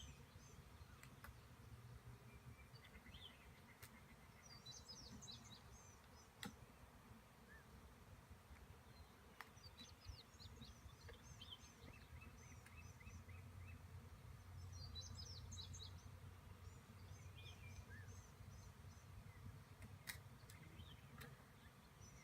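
Faint outdoor ambience: small birds chirping in short bursts every few seconds over a low steady rumble, with a few soft clicks.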